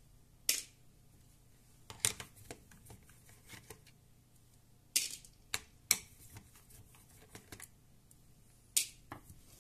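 Screwdriver and screws clicking and scraping against the plastic base of a Toshiba Portégé R830 laptop as its screws are backed out: a handful of sharp, irregularly spaced clicks with small ticks between them.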